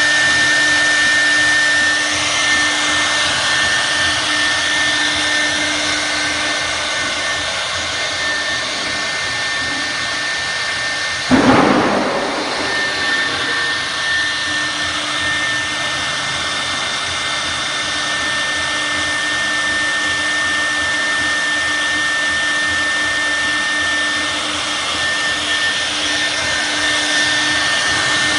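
CNC wood router's spindle running at speed with a steady high whine over a broad hiss while its rotary axis carves a wooden log. A sudden brief louder burst comes about eleven seconds in.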